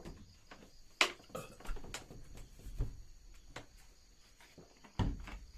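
Irregular knocks and clicks of things being handled, the sharpest about a second in and again near the end, over a faint steady high chirring of night insects.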